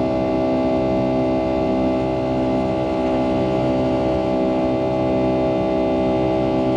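Pratt & Whitney PW2037 turbofan engines of a Boeing 757-200 heard inside the cabin at high power, a steady drone of many overlapping tones over a rushing noise.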